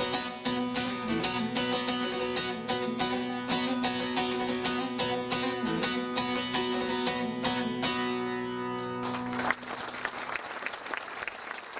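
Live folk music on a strummed string instrument, with steady strokes of about four a second over held notes, stops abruptly about nine and a half seconds in, and audience applause follows.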